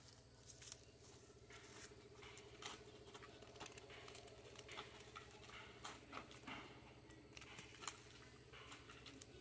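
Faint, scattered clicks and light scraping from a long bamboo pole prodding the underside of a mango tree branch to knock off the mushrooms growing on it, with a low steady hum underneath.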